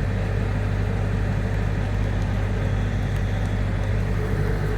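Semi-truck engine idling steadily, a low even hum.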